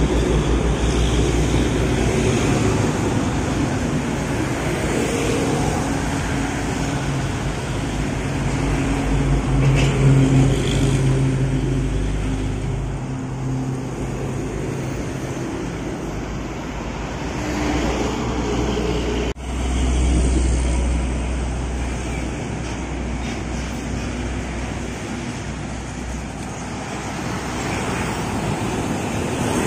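Heavy diesel trucks and motorcycles passing close by on a highway, engines running with tyre noise. The engine sound swells about a third of the way in, and the sound drops off sharply for a moment about two-thirds through.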